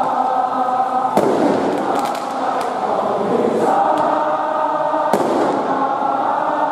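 Football supporters singing a chant together in the stands, with a few sharp firework bangs cutting through, the loudest about a second in and about five seconds in.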